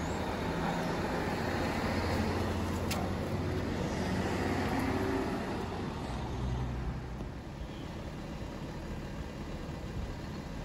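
Motor vehicle engine and road traffic noise, a steady low rumble. It is louder for about the first seven seconds, then eases off.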